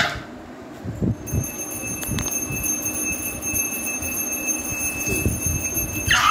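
A puja hand bell ringing continuously from about a second in, its several high ringing tones held steady, with soft low thumps from children moving on the floor underneath.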